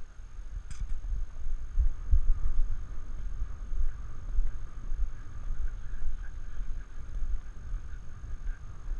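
Wind buffeting the microphone of a camera riding on a galloping Arabian horse, with the uneven low thudding of the gallop underneath.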